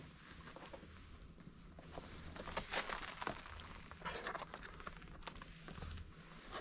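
Faint scattered scuffs, light clicks and rustling of people moving about, busiest in the middle.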